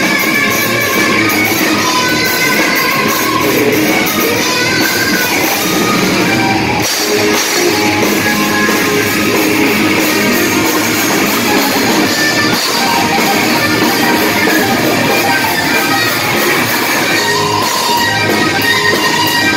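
Live rock band playing loudly: an electric guitar lead line over bass guitar and drums.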